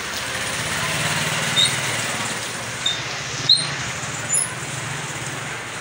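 Steady street-stall background noise with a low hum, a few brief high chirps and one sharp click about three and a half seconds in.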